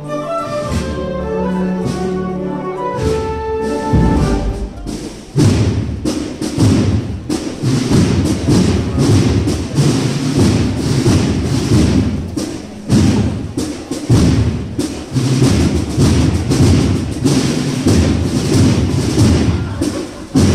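A wind band plays the sustained closing chords of a procession march; about four seconds in the music stops and gives way to loud, uneven thumping and rumbling noise.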